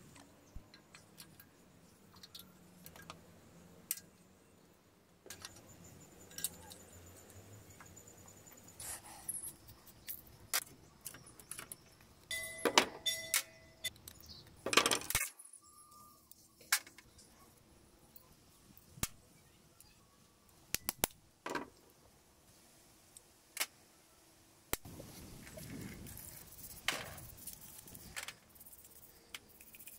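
Clicks and metallic clinks of small parts being handled as a motorcycle carburetor is taken apart over a metal tray, with a short ringing clink a little before halfway. Near the end, soft scrubbing as the small parts are cleaned with a brush.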